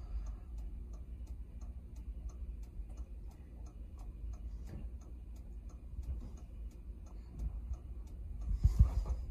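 Dodge Ram 3500 turn-signal flasher ticking steadily at normal blinker speed with the brakes held on, a sign that the flatbed's fast-blink (hyperflash) problem is fixed. A low steady hum sits underneath, and a few low thumps come near the end.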